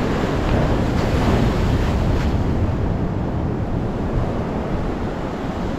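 Sea waves washing and wind buffeting the microphone: a steady rushing noise, heaviest in the low end.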